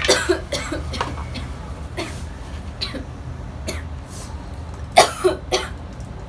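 A woman coughing in short bursts: a few right at the start and a cluster of three about five seconds in, the first of them the loudest, over a steady low hum.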